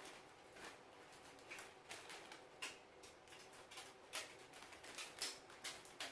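Faint, irregular light clicks and taps, a few each second, as small hard parts are handled.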